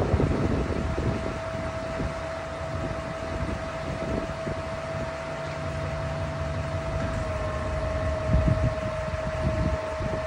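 The 2009 GMC C5500's Duramax V8 diesel idling, with a steady high whine over it. Wind buffets the microphone.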